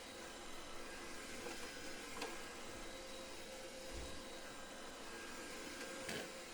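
Dreame D9 robot vacuum running with a steady whir, with a sharp knock about two seconds in and another near the end.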